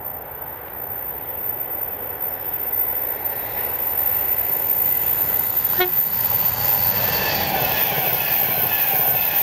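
Class 390 Pendolino electric train approaching and passing at speed: its rumble and wheel noise grow louder over the first few seconds, then hold steady as the carriages go by, with a high whine near the end.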